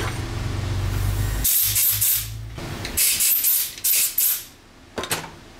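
Compressed-air blow gun giving several short blasts of hiss, one long and then three quick ones, blowing the chips out of a freshly cut recess in a motorcycle shock part. A low, steady hum runs beneath at first and stops about a second and a half in.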